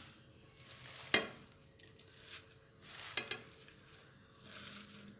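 Fresh mint leaves rustling as they are put into a mixer-grinder jar, with a sharp click about a second in and a few lighter knocks around three seconds.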